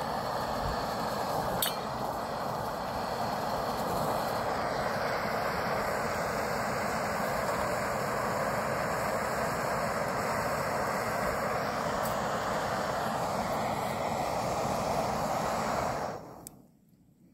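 Canister gas camping stove burning at full flame with a steady, loud hiss, with a single light metallic clink early in; the hiss stops abruptly near the end.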